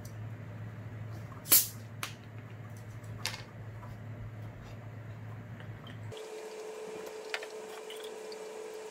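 A large plastic bottle of carbonated beer is twisted open, with one short, sharp hiss of escaping gas about a second and a half in. In the last few seconds beer is poured from the bottle into a glass beer mug with a steady filling tone.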